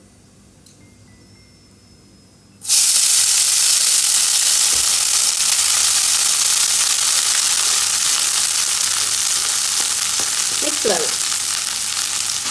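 Hot oil and butter with cumin seeds sizzling as cooked rice is added to the pan. The sizzle starts suddenly about two and a half seconds in, stays loud, and dies down slowly.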